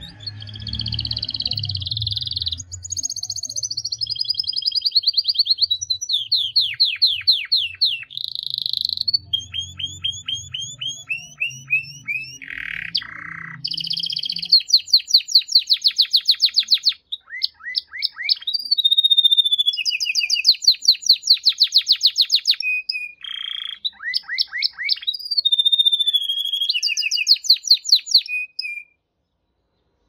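Male domestic canary singing a long, continuous song of fast trills and rapidly repeated notes, mixed with rising and falling whistled glides, the phrase changing every second or two. The song stops suddenly near the end.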